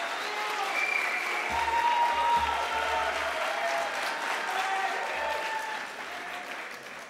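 Audience applauding, with a few voices in the crowd, dying away near the end.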